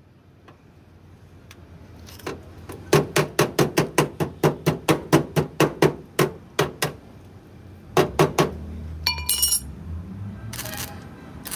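Hammer blows on the sheet-metal cab panel of a tow truck being repaired for rust: a quick run of about twenty strikes, several a second, then three more. A short metallic ring follows.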